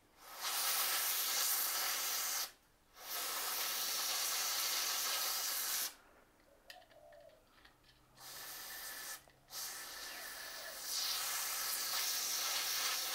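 Aerosol freeze spray hissing in four bursts, the third one short, sprayed onto a seized broken bolt to chill it so it can be worked loose.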